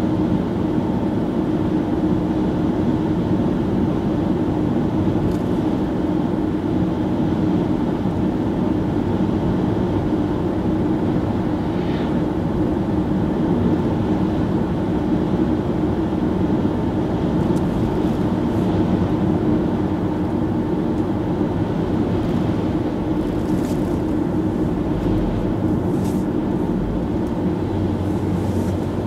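Steady road noise inside a moving car's cabin: tyres on asphalt and the engine making an even, low drone at a constant cruising speed.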